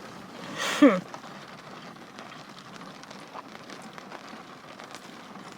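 Steady hiss of rain falling on a car, heard from inside, with a brief falling vocal hum from a woman about a second in.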